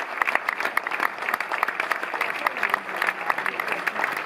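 Theatre audience applauding: many hands clapping in a dense, steady stream.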